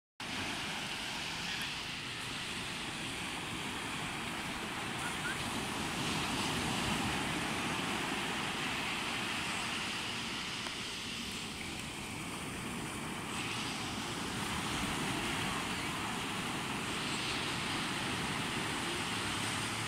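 Small waves breaking and washing up a sandy beach in a steady rush that swells and eases every few seconds, with wind buffeting the microphone.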